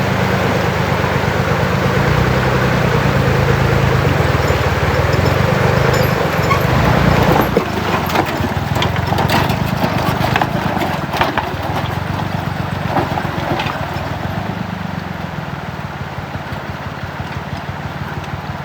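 An engine running with a fast, even chugging pulse. About seven and a half seconds in it drops a little in level, and scattered clicks and knocks follow.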